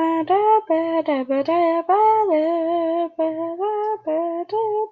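A person singing a wordless tune in a high voice, holding notes and sliding between pitches.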